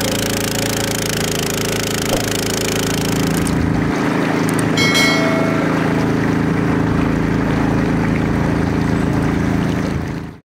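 Single-cylinder 170F four-stroke gasoline long-tail boat engine (7.5 hp) running steadily at speed, with the rush and splash of the churned water. The water hiss eases about four seconds in while the engine hum carries on, a brief chime sounds around five seconds, and the sound cuts off abruptly just before the end.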